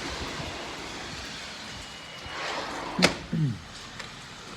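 Steady rainfall, an even hiss. About three seconds in there is a single sharp knock, followed at once by a brief low voice sound.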